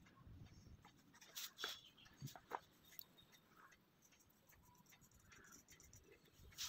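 Near silence, with faint short taps and scratches of a paintbrush working on paper, a few of them bunched between about one and a half and two and a half seconds in.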